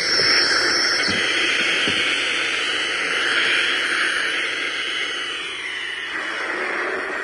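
Radio static: a steady hiss that grows duller about six seconds in.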